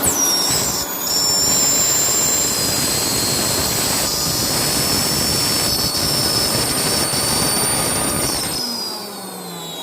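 Vacuum motor of a dental thermoforming machine running with a steady high whine as it sucks the softened plastic sheet down over the dental model. It is switched off about a second before the end, and its whine falls as it winds down.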